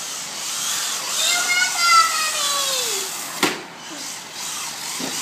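Whine of a 1/16-scale Traxxas VXL RC car's brushless electric motor, rising and then slowly falling in pitch as the car speeds up and slows down, over a steady hiss. A sharp knock about three and a half seconds in.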